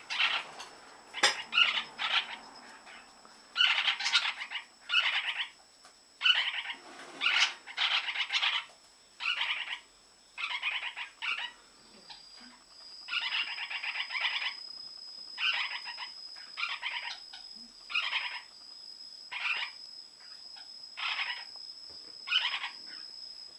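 Lineolated parakeet calling in breeding condition: a long run of chattering calls, each about half a second to a second long, repeated every second or so.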